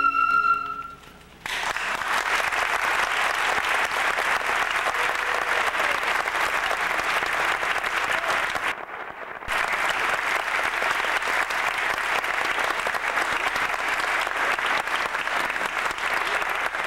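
The last held note of a sung song with instruments fades out in the first second. Then a concert audience applauds steadily. The applause breaks off sharply for under a second about nine seconds in and then resumes.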